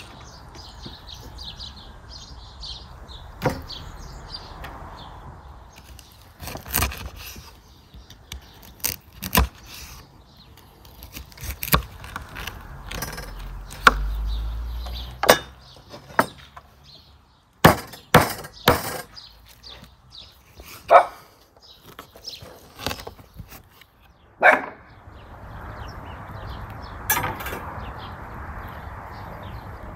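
Knife cutting a rack of raw lamb ribs into single ribs on a wooden cutting board: about a dozen irregular sharp knocks and cracks as the blade goes between the ribs and hits the board, with softer slicing sounds near the start and end.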